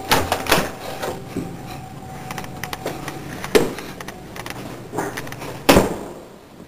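A few sharp knocks and clunks: a cluster right at the start, one about three and a half seconds in, and the loudest near the end. Under them is a faint steady hum that stops about three seconds in.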